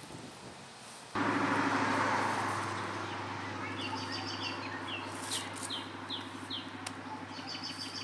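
Small birds chirping in quick runs of short high notes from about halfway through, over a steady low machine hum that starts abruptly about a second in, together with a rushing noise that fades over the next few seconds.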